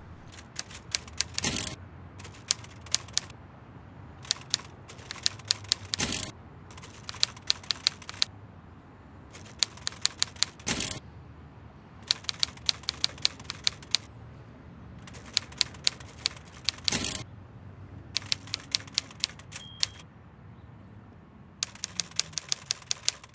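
Typewriter typing in bursts of rapid keystrokes with short pauses between them, a heavier knock every few seconds, and a short high ding near the end.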